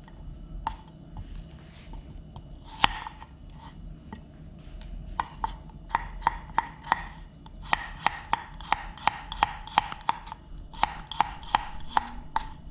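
Chef's knife chopping shallot and garlic on a wooden cutting board: a few scattered knocks with one sharper one about three seconds in, then a steady run of blade strikes about three a second through the second half.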